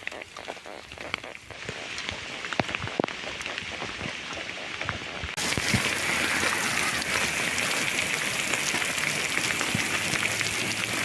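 Rain falling on a surface: scattered drops ticking at first, then a steady hiss of rain that becomes suddenly louder about five seconds in.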